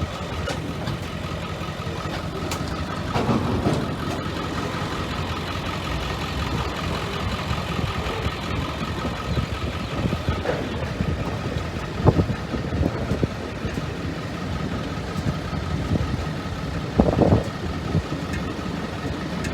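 Diesel engine idling steadily, with a few thumps, the loudest about twelve and seventeen seconds in.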